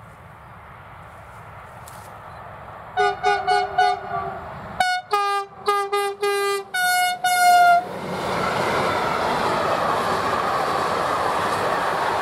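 Electric locomotive at the head of a container freight train sounding its two-tone horn in a rapid string of short toots, starting about three seconds in and lasting about five seconds, the last one held a little longer. Then the steady noise of the train's wheels and wagons running past at speed takes over.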